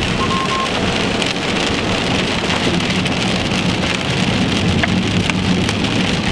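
Steady rain falling on a car's windshield and roof, heard from inside the car.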